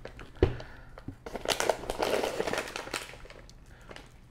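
A knock about half a second in, then the crinkling of a plastic snack bag of Moose Munch popcorn and the wrapped treats around it as it is pulled out of a gift box.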